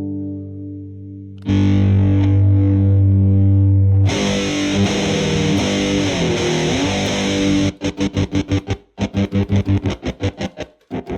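Electric guitar played through a telephone-shaped fuzz pedal, heavily distorted. A held note fades, then a loud low chord rings. About four seconds in the tone turns brighter and harsher. Near the end it changes to fast, rapid picked chugging with short breaks.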